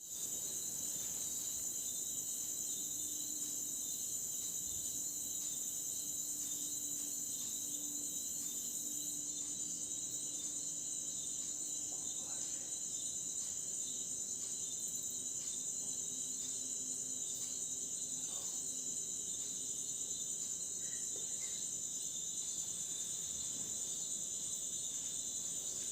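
Steady, high-pitched chirring of insects, an unbroken chorus with no pauses.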